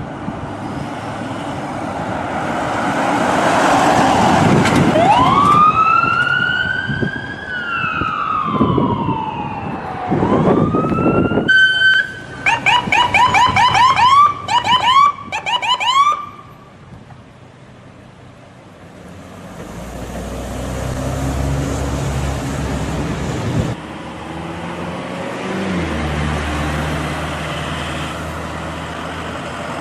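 Ambulance siren on an emergency vehicle: a slow rising and falling wail, a brief steady tone, then a fast yelp of about three to four cycles a second that cuts off about halfway through. After that a vehicle engine rumbles low and steady under road noise.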